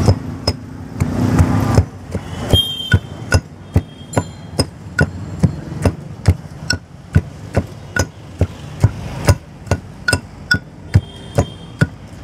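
Pestle pounding green banana, bombai chilli and spices in a hamandista mortar, making sharp, steady knocks at about three a second as the bhorta is mashed.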